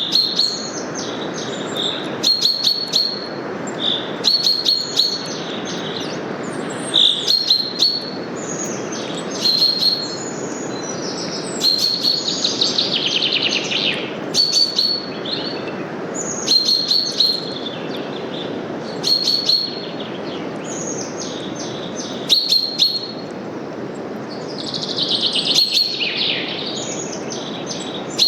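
Small songbirds chirping in short phrases about every two seconds, two of them falling trills, over a steady rush of wind through forest leaves.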